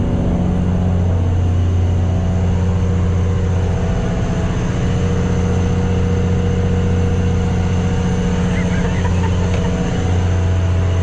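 Fishing boat's inboard engine running steadily, a loud, even low hum.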